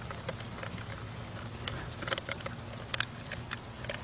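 Scattered small metallic clicks and clinks from steel bolts and lock washers being handled and started by hand, a few bunched together about two and three seconds in, over a faint steady low hum.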